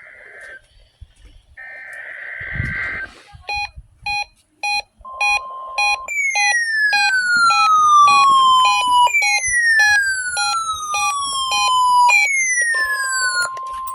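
NOAA Weather Radio weekly test alert: two buzzy SAME digital data bursts, then a weather alert radio's alarm with a rapid train of short beeps, about three a second, overlaid by three long falling siren-like sweeps, with a steady tone briefly sounding before and after the sweeps.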